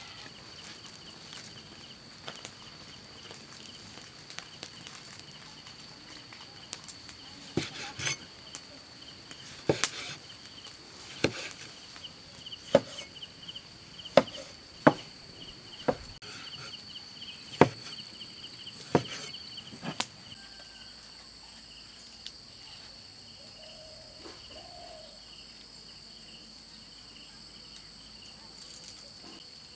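Kitchen knife chopping tomatoes on a wooden cutting board: about a dozen sharp knocks spaced a second or so apart, from about 8 to 20 seconds in. Insects chirp steadily behind it.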